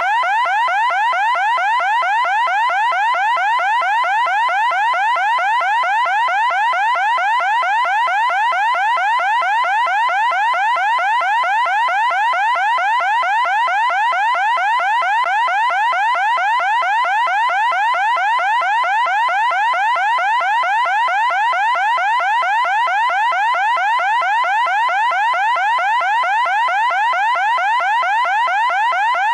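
Loud electronic siren tone, a rising sweep pitched around 1 kHz that repeats several times a second without a break.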